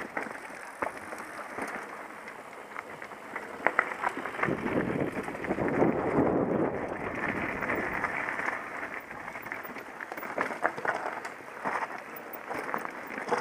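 Mountain bike descending rough, rocky singletrack, heard from an onboard camera: a steady crackle of tyres on gravel and stones, with sharp rattling knocks from the bike over rocks and a louder rushing swell about halfway through.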